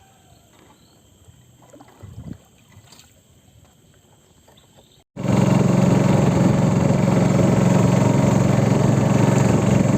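A few faint knocks in near quiet, then about halfway through a small boat's engine comes in abruptly, running loud and steady.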